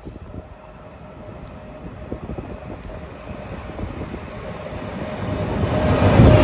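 Electric locomotive hauling a freight train, approaching and getting steadily louder as it rolls up to pass close by, with a steady whine from the locomotive that grows strong near the end.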